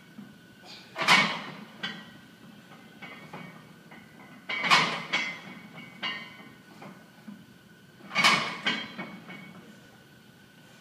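A man breathing hard through a set of high-rep back squats with a 225 lb barbell: three forceful, hissing breaths, one about every three and a half seconds, each as he drives up out of a rep, a sign of heavy exertion late in the set.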